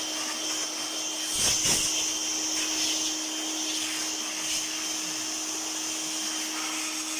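Small electric motor of a cleaning blower or vacuum running steadily, with a constant whine over a rush of air. It swells louder and rougher for about half a second, about a second and a half in.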